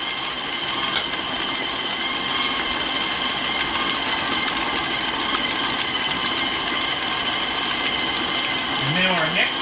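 KitchenAid bowl-lift stand mixer running steadily at mixing speed, its flat beater working thick peanut butter cookie batter in a steel bowl: an even motor and gear whir with a steady high whine.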